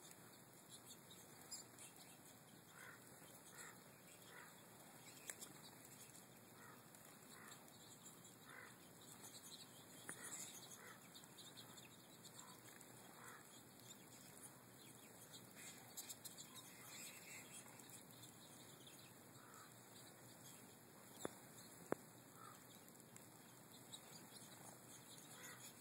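Faint short chirps of American goldfinches, many scattered calls throughout, over a low hiss. Two sharp clicks come a little past twenty seconds in.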